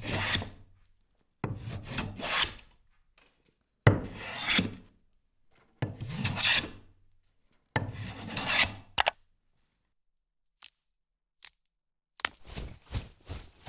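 Wooden branches and tree bark rubbing and scraping in five long rasping strokes about two seconds apart. After a short pause with two faint clicks, quicker short strokes follow near the end.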